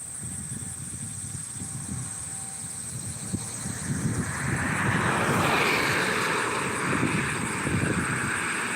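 A motor vehicle approaching, its noise building from about four seconds in and holding, over low wind rumble on the microphone.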